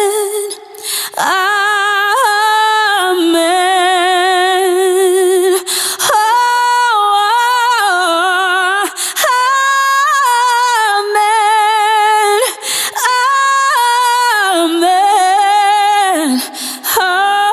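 A single high singing voice performing an unaccompanied gospel-style vocalise without clear words, full of vibrato and ornamented runs, with short breaths between phrases, about five times.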